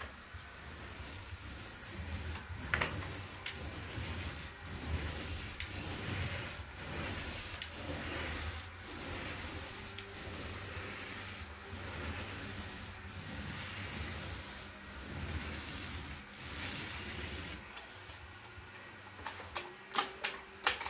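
Paint roller on an extension pole rolling ceiling paint across a plasterboard ceiling: a rubbing swish that swells and fades with each stroke, about one stroke every second or two. A few sharp clicks near the end.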